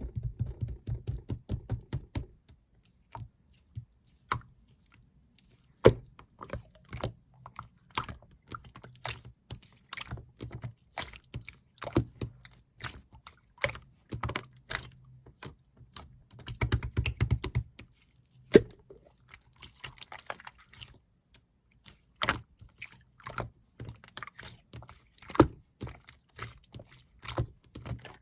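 Typing on a computer keyboard: irregular runs of key clicks with short pauses, denser and heavier at the start and about 17 seconds in.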